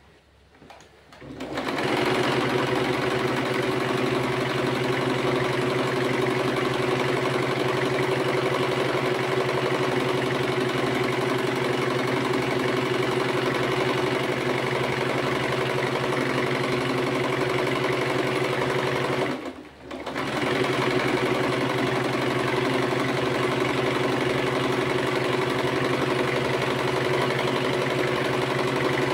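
Portable Singer sewing machine running steadily while stitching shirring gathers into thin fabric. It starts about a second and a half in and stops for about a second roughly two-thirds of the way through before running on.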